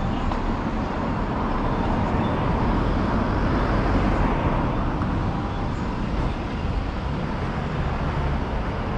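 Road traffic at a street intersection: cars and a van passing, a steady rumble of engines and tyres that swells a little around the middle.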